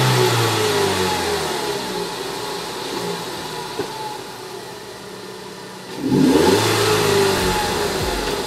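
Ford Focus 2.0-litre four-cylinder engine being blipped with a larger 2.3L EcoBoost throttle body fitted: revs fall away from a blip at the start and settle toward idle, then a second sharp blip about six seconds in drops back down.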